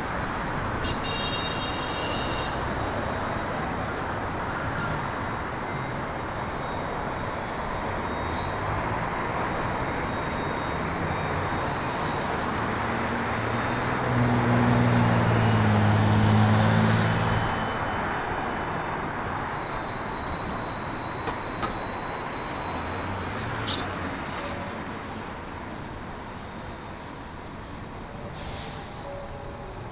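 Steady city street traffic noise, with a heavy vehicle's low engine hum passing close by about halfway through, the loudest part.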